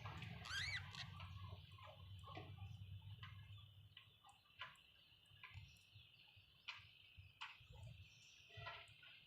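Budgies giving faint, scattered short chirps, with one brief rising-and-falling whistle near the start.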